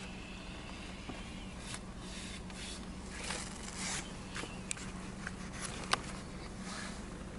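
Leather gloves and a fur coat rustling, rubbing and creaking with scattered small clicks, the sharpest about six seconds in, over the steady low hum of the car idling.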